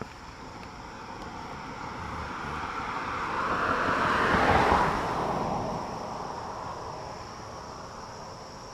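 A car passing by: its tyre and engine noise swells gradually, peaks about halfway through and fades away. Crickets chirp steadily underneath.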